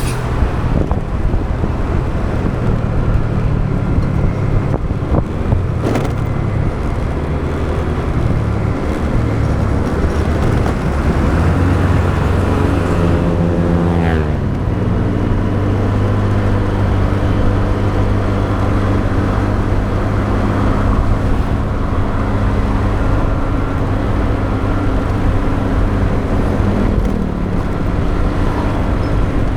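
Motorbike engine running while riding, over steady road and wind noise. About twelve seconds in, the engine note falls over roughly two seconds, then holds steady.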